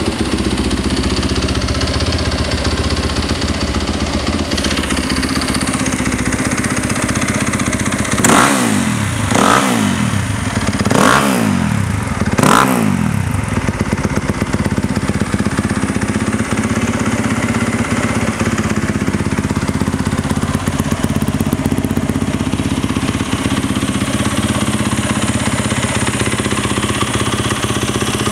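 Yamaha WR250F's 250 cc single-cylinder four-stroke engine idling steadily, with four quick throttle blips about eight to thirteen seconds in, each revving up and dropping straight back to idle.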